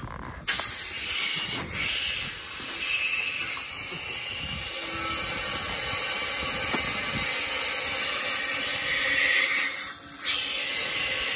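Compressed air hissing steadily out of a trailer air-suspension (airbag) line opened to fit an air scale sensor's T-fitting. The hiss starts about half a second in, dips briefly near the end and resumes.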